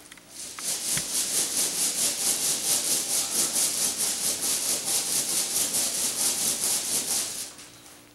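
Cast lead bullets shaken and rolled inside an acetone-dampened towel: a fast, even rhythm of metal slugs rattling together and terry cloth rubbing, starting about half a second in and stopping about seven and a half seconds in. This is the acetone wash that strips lubricant oil from the bullets before powder coating.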